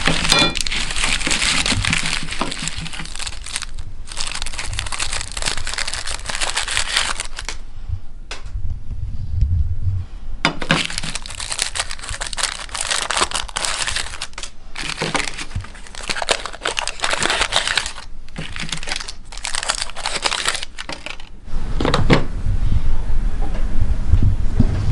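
Plastic chocolate-bar wrappers crinkling and tearing as the bars are unwrapped, in bursts with short pauses. A low hum comes in near the end.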